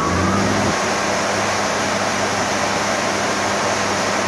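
Bridgeport Romi EZ-Path SD CNC lathe spindle running steadily at about 2,000 RPM: a loud, even whir of the spinning chuck and drive, with a steady hum and whine.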